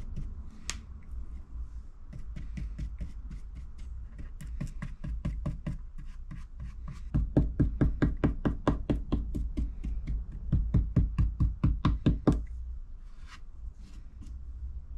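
Brush dabbing resin into fibreglass matting on a drain pipe repair in quick, even strokes. The strokes are light at first, then a louder run of about four or five a second starts about halfway through and stops a couple of seconds before the end.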